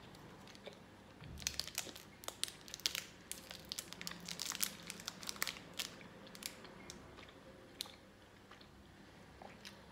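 Silver foil wrapper of a snack bar crinkling as it is handled, in a dense run of sharp crackles for a few seconds starting about a second in, thinning out to a few clicks later, with chewing.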